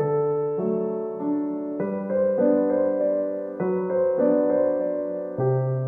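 Background solo piano music, a gentle melody whose notes and chords change every second or so.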